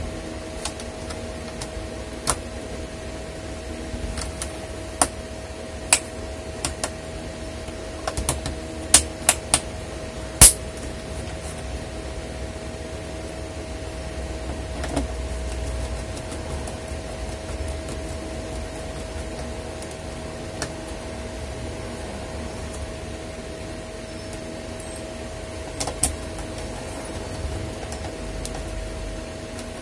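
Scattered sharp clicks and taps of a screwdriver and small screws on a laptop's plastic base cover as it is screwed back together, the loudest about ten seconds in. A steady electric fan hum runs underneath.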